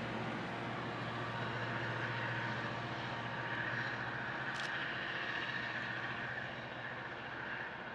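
Locomotive-hauled train of vintage passenger carriages rolling away along the track, with a low steady hum and a high steady squeal through the middle. The sound fades slowly near the end as the train recedes.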